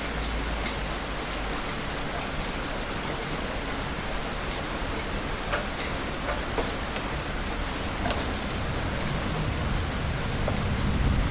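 Heavy rain falling steadily, with scattered sharp drips and spatters. Near the end a low rumble of thunder begins to build.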